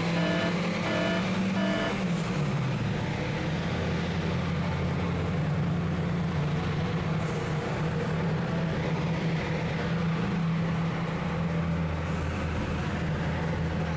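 Fiat Tempra engine heard from inside the cabin, running at high, steady revs with the clutch slipping. The pitch dips briefly about two seconds in. A string of short beeps sounds over the first two seconds.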